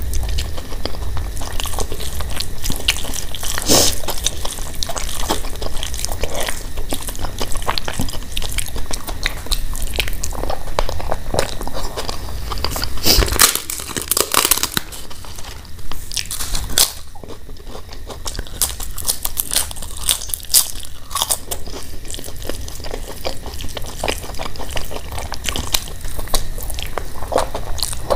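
Close-miked eating with the hands: squelching rice and mashed potato, a crisp papad (fried lentil wafer) cracked apart by hand with a burst of crunching about halfway through, and chewing.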